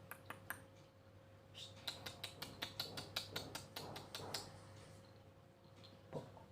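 A quick run of light, sharp clicks, about five a second, for a few seconds in the middle, over a faint steady hum.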